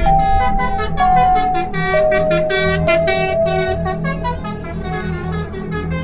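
A musical bus 'telolet' horn melody of long held notes stepping up and down, laid over a backing music track with a steady beat.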